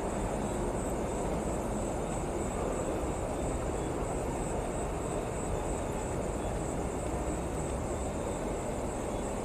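Steady night ambience: an even low rumble and hiss, with a thin, high chirring of insects above it.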